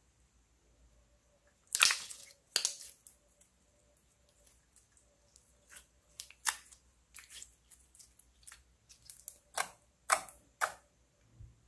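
Clear orange glitter slime being squeezed and kneaded by hand, giving sharp sticky pops and clicks: two loud ones about two seconds in, then a quicker run of them from about six seconds on.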